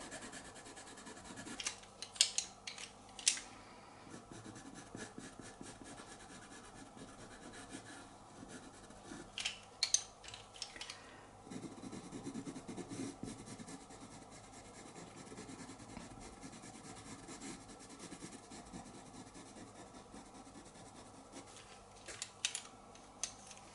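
Pastel pencil scratching and rubbing over pastel paper in short strokes, faint, with clusters of sharper, louder scratches about two seconds in and again about ten seconds in.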